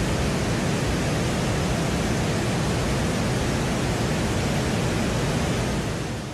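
Dettifoss waterfall: a steady, dense rush of falling water with no breaks, fading out near the end.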